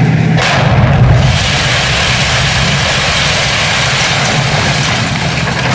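A tank's engine drone, then a sudden loud blast about half a second in, followed by a steady rushing noise as dust and smoke engulf the scene.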